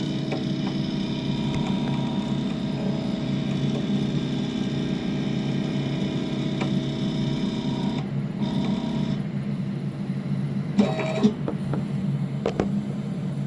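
Stepper motors of a 6090 CNC router driving the spindle head down the Z axis, a steady whine of several tones. The higher part of the whine drops out briefly about 8 seconds in, and two sharp clicks come about 11 seconds in.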